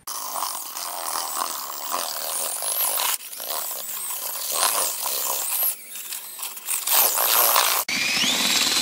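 Cordless drill spinning a paddle mixer through powdered grout and water in a plastic bucket, giving a churning, scraping noise. It runs in spurts with a few brief stops, and near the end the motor's whine rises and falls as the speed changes.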